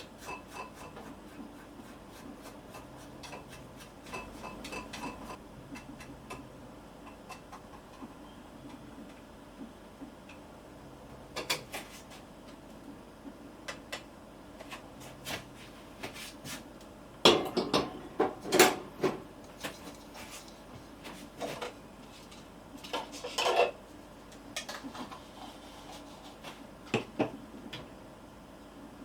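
Dishes and cutlery clinking and knocking: scattered light clicks, then a run of louder clatters a little past the middle and another a few seconds later.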